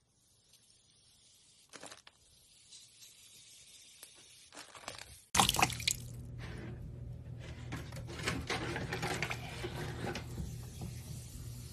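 Faint squishing as foam-filled plastic bags are squeezed, then, from a sudden cut about five seconds in, louder water sloshing and splashing in a bucket over a low steady hum.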